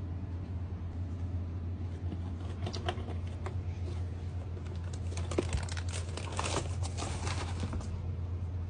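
Tissue paper in a shoebox rustling and crinkling, with a few light clicks about three seconds in and a denser run of crackles between about five and eight seconds in, over a steady low hum.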